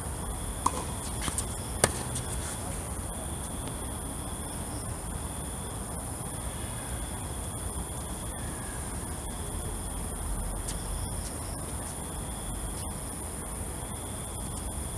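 Tennis ball struck three times with rackets in the first two seconds, sharp pops with the last one the loudest. Underneath, insects keep up a steady, high-pitched trill.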